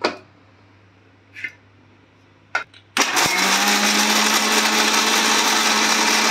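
Electric mixer grinder with a steel jar: a few clicks as the jar is set on the base, then about three seconds in the motor starts and runs loud and steady with a constant hum, grinding coconut and coriander leaves into a paste.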